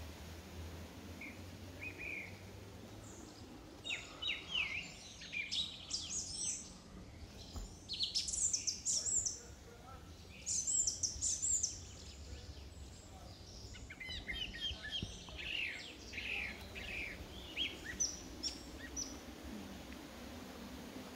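A songbird singing: two long bouts of quick, varied high chirps and trills, with a few faint chirps before the first bout.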